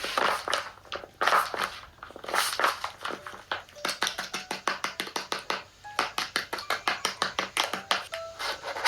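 A rapid series of sharp taps, about five a second, in two runs, with rougher noisy bursts in the first two seconds.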